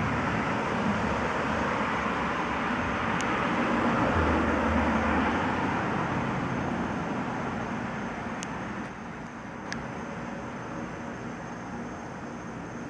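A steady rushing noise like passing road traffic, which swells about four seconds in and then fades away. A few faint clicks.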